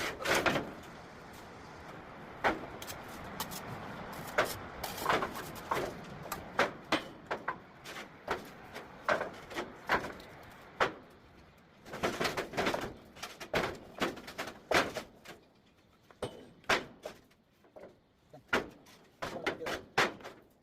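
A run of irregular sharp knocks and clicks, several a second, thinning out after about 16 seconds, with a faint hiss under them in the first few seconds.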